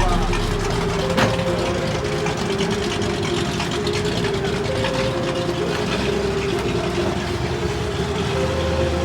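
Car engines idling steadily. A deep exhaust rumble fades away in the first moment.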